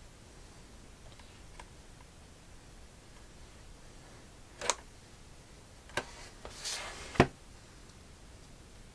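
Hands handling a cardboard box and a folding pocket knife: faint ticking, then a few sharp clicks and a short scraping rasp in the second half, the last click the loudest.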